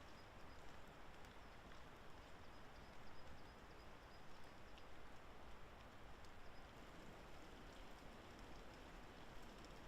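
Near-silent woodland ambience after rain, with faint scattered drips falling from the wet trees.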